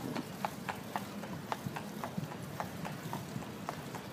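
Carriage horse's hooves clopping on a paved road, a steady rhythm of about four hoofbeats a second.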